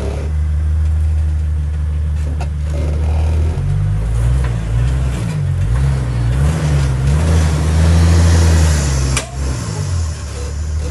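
Off-road vehicle engine running at a low, steady pitch, then revving up and down repeatedly for several seconds from about three and a half seconds in before settling again. A sharp knock comes about nine seconds in.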